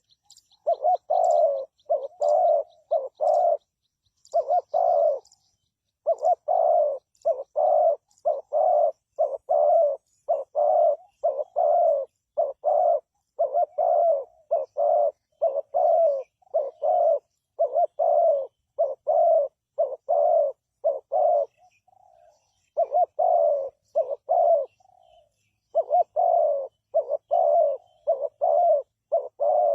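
Spotted dove cooing in a long series of repeated coos, about two a second, broken by a few short pauses. A small bird chirps in a fast high trill during the first few seconds.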